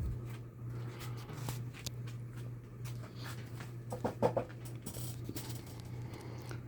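Palm Air 52-inch ceiling fan running with a steady low motor hum, with scattered light clicks and a few louder knocks about four seconds in.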